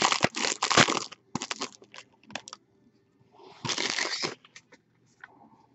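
Foil wrapper of a Bowman Chrome baseball card pack crinkling as it is torn open and pulled off the cards, followed by a few light clicks and, about three and a half seconds in, another short burst of rustling.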